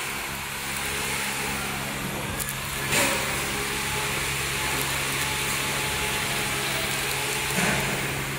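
Mask packaging machine running with a steady hum and hiss, with a short knock about three seconds in and another near the end.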